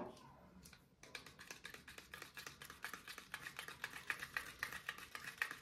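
Small metal spatula stirring thick paint in a plastic cup, a rapid run of scraping clicks against the cup starting about a second in.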